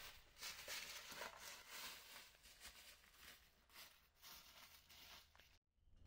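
Faint, irregular footsteps through dry fallen leaves.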